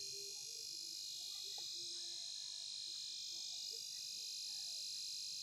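Electronic ultrasonic rodent repeller (a 5-watt mains unit) sounding through its tweeter: a steady, shrill cluster of high-pitched electronic tones, one of them slowly wavering in pitch around the middle.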